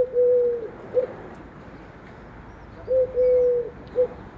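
A dove cooing: two phrases about three seconds apart, each a short note, a long held note and a short note.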